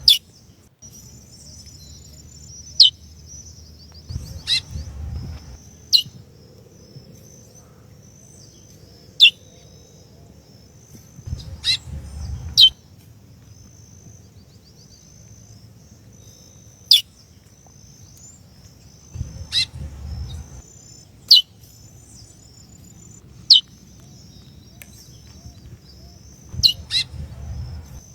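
Female chestnut-bellied seed finch (curió) calling: single short, sharp, falling chirps every few seconds, over a steady high background trill, with a few brief bursts of low rumble.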